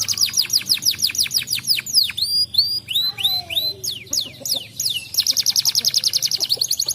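Domestic canary singing: a fast trill of repeated falling high notes, broken about two seconds in by a run of varied swooping notes, then another rapid, tightly spaced trill from about five seconds in.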